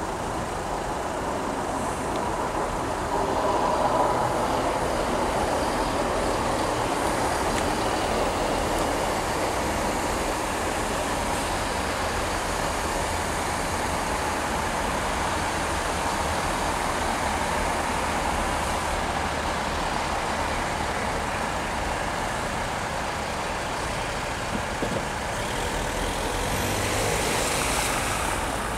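Class 166 Networker Turbo diesel multiple unit's engines running with a steady rumble, a little louder about four seconds in and again near the end.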